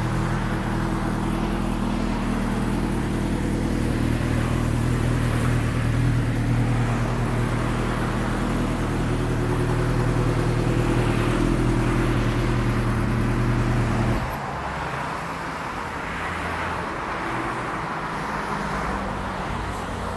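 Suzuki GSX-R 750's inline-four engine idling steadily through an aftermarket slip-on exhaust, stopping abruptly about 14 seconds in. Faint traffic noise remains after it.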